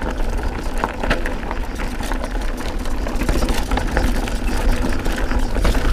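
Mountain bike, a Canyon Spectral AL, riding down a loose, rocky singletrack: tyres crunching over gravel and stones under a steady low rumble, with frequent clicks and knocks of the bike rattling over the rough ground.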